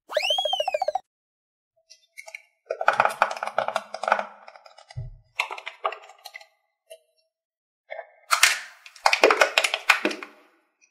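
A short whistle-like sound effect that rises and falls with a wobble opens the stretch. Then come bouts of crackling and clicking from a plastic Play-Doh Slime tub being handled and opened, with one low thud. The densest crackling comes near the end as the blue slime is tipped out of the tub.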